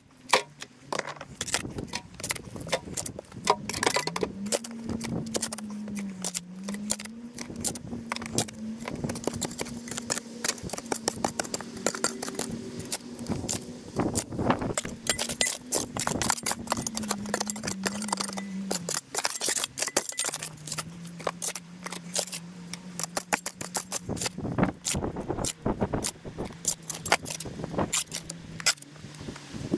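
Sped-up shovel digging: a fast, dense clatter of the blade scraping and striking soil and stones. Under it runs a low steady hum that rises in pitch a few seconds in and steps down about two-thirds of the way through.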